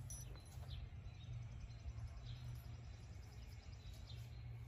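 Faint outdoor ambience: a steady low rumble with a few faint, short bird chirps scattered through it.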